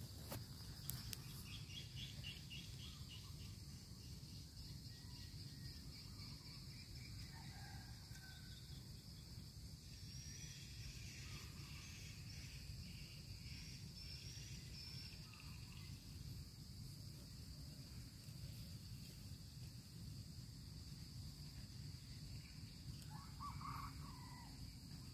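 Faint orchard ambience: a steady high-pitched insect trill throughout, with a few short bird chirps scattered across it, a small cluster of them near the end, over a low rumble.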